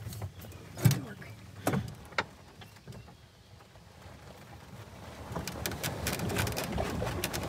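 36-volt electric golf cart rolling slowly over loose chert to compact it: tyres crunching on the rock and the cart body rattling, with a few sharp knocks in the first two seconds and a rising spell of crunching and clicking in the last two.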